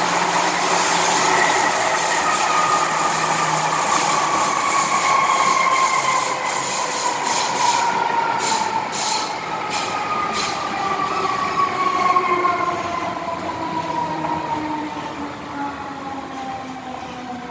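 MTR M-Train electric multiple unit heard from inside a passenger car, running on the rails with a motor whine that falls slowly in pitch as the train slows, under a steady rumble of wheels on track. A run of sharp clicks comes about eight to ten seconds in.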